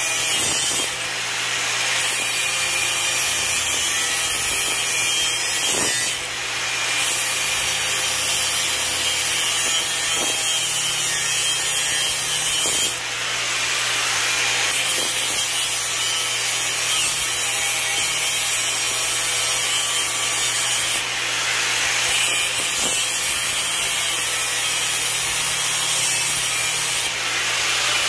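Angle grinder with a cut-off wheel cutting through a cast-iron drain pipe, a steady high grinding that eases off for a moment every few seconds before biting in again.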